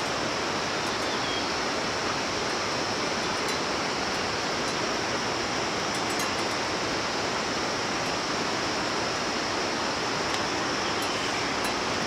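Steady rushing of flowing water, an even unbroken noise with no distinct plough or animal sounds standing out.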